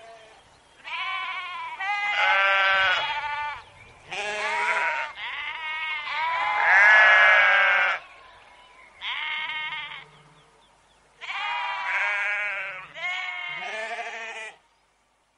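Several sheep bleating one after another in a series of wavering calls, some overlapping, the longest and loudest about halfway through; the calls cut off abruptly near the end.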